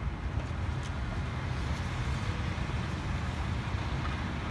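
Steady outdoor background noise: a low rumble with a faint hiss above it.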